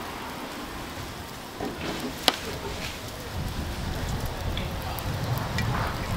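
Hotteok frying in oil on a griddle, a continuous sizzle, with one sharp click about two seconds in.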